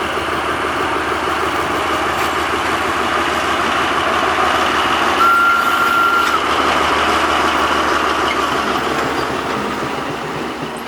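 Narrow-gauge diesel train running past, a steady loud rumble that swells and then fades. About five seconds in comes a single short, steady high tone.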